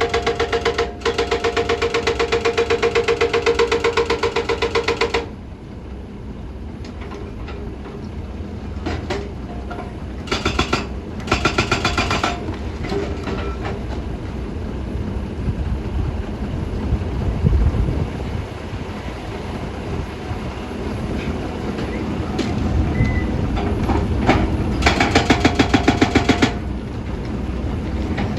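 Excavator at work: bursts of a rapid, even rattle with a buzzing tone over a steady low rumble. The first burst lasts about five seconds, shorter ones come around the middle, and another comes near the end.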